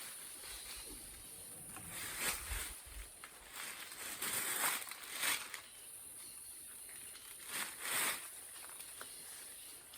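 Footsteps rustling and crunching through leaf litter, a handful of uneven steps, over a steady high-pitched insect hum.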